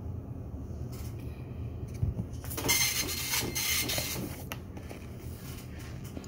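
Old office printer running for about two seconds near the middle, over a steady low hum.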